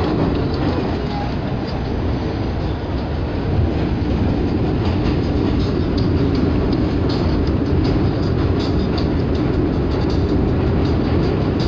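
Subway train running at speed, heard from inside the car: a loud, steady rumble of wheels on rails with faint, irregular clicks.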